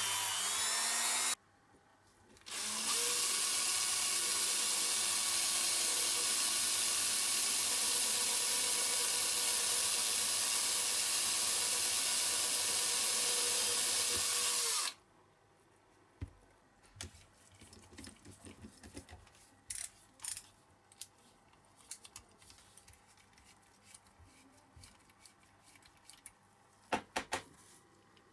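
A rotary tool grinding a diecast metal part stops about a second in; then a cordless drill runs steadily for about twelve seconds, drilling into the rivet post of a diecast model's baseplate. After it stops, only faint scratches and small clicks of a hand pin-vise drill turning into the metal are left.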